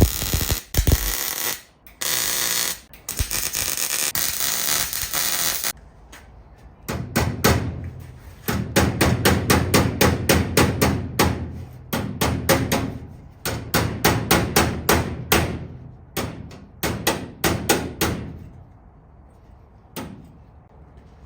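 Sheet-metal wheel-arch lip being hammered: runs of sharp metal hammer blows, several a second, with short pauses between runs. They follow about six seconds of a harsh, steady noise.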